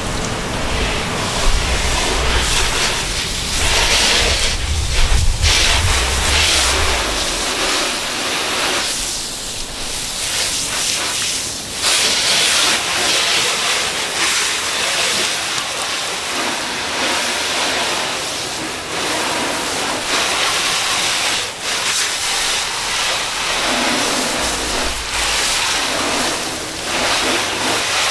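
Garden hose spray nozzle rinsing a car: a steady hiss of water jetting out and splashing on the body panels, its tone shifting as the spray moves. A low rumble sits under it for the first several seconds and again near the end.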